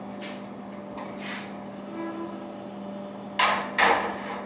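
Oven door and rack clanking twice in quick succession near the end as a metal baking pan is put into a gas range oven, over a steady low hum.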